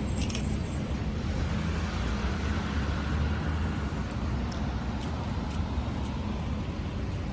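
Steady low rumble of road traffic, with a few light clicks right at the start.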